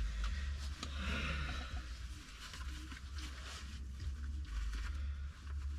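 Rustling and handling noises with scattered light clicks, as clothing is being pulled onto a small dog, over a steady low rumble.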